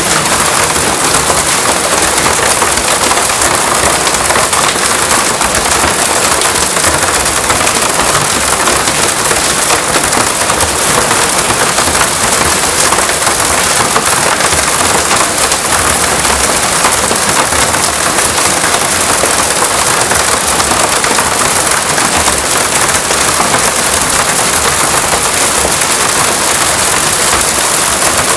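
Hail and heavy rain pelting down: a loud, steady, dense patter of countless small impacts that never lets up.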